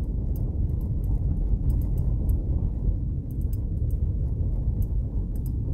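Steady low road rumble inside a Subaru Impreza's cabin as it drives on a snow-covered highway, tyres running on packed snow, with faint high ticks now and then.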